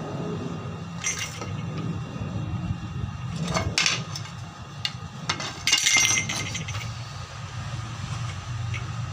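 A low, steady engine hum, with a few short scratchy clinks and rasps over it. The loudest come about four and six seconds in.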